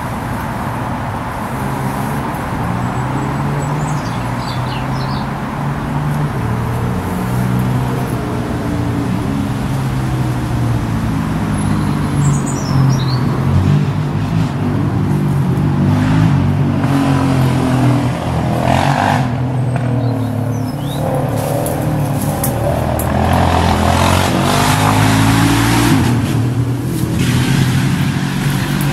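Road traffic from a busy roundabout: vehicle engines run with a low hum that rises and falls in pitch as they slow and pull away. Passing cars swell louder twice in the second half.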